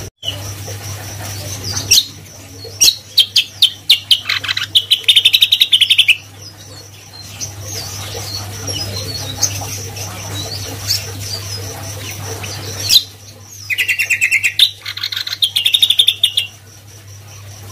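Caged cucak kombo singing: two loud bursts of quick, sharp repeated notes running into fast chattering trills, with a pause of several seconds between them and a faint steady hum underneath.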